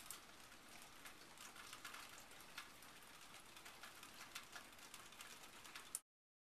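Near silence: faint outdoor background hiss with scattered light ticks, cutting off to dead silence about six seconds in.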